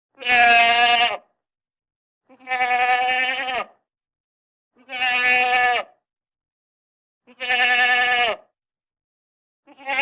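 Goat bleating: four long calls about two and a half seconds apart, each dropping in pitch at its end, and the start of a fifth near the end, with silence between calls.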